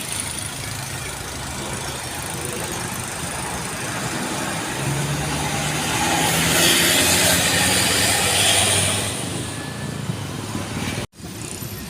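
A large bus driving past with its engine running; the engine and road noise swell to a peak in the middle and then fall away. The sound breaks off abruptly near the end.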